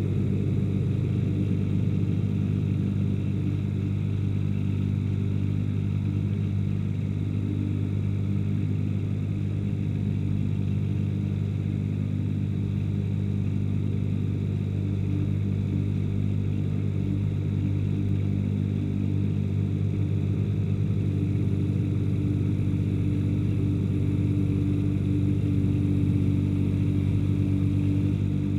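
Ransomes HR300 ride-on mower's engine running steadily at an even speed.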